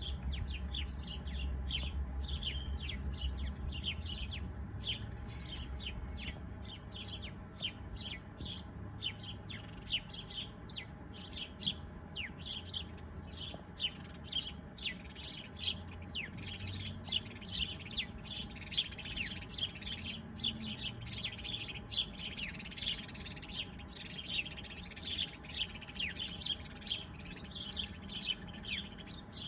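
A flock of small birds chirping, a dense chorus of short high chirps several a second with no pause.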